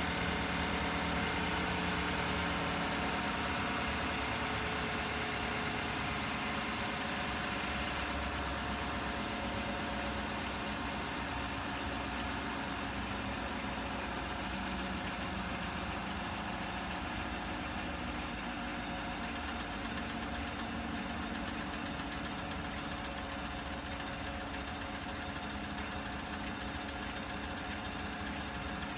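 2016 Chevrolet Silverado engine idling steadily, with a ticking from the engine compartment that comes in partway through: the sign of a failing vacuum pump.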